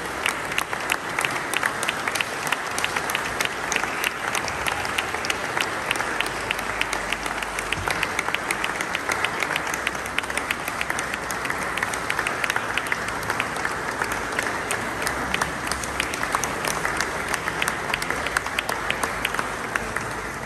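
Audience applauding steadily, with many hands clapping, until it stops near the end.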